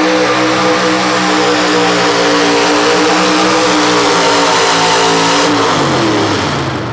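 Light pro stock pulling truck's engine held at high, steady revs under full load while it drags a weight-transfer sled through the dirt, then falling in pitch near the end as the pull ends and the throttle comes off.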